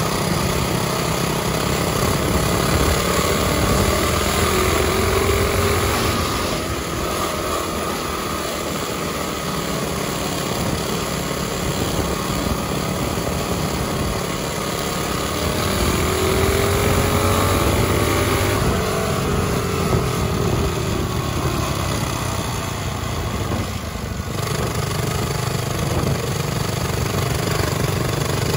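Mini bike's small four-stroke engine running hard under way, its pitch rising and falling as the throttle opens and eases, with a strong rush of wind across the microphone.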